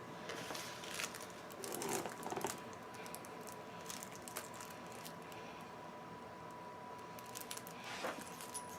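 Faint scattered clicks and rustling of packaging being handled, busiest about two seconds in, over a faint steady tone.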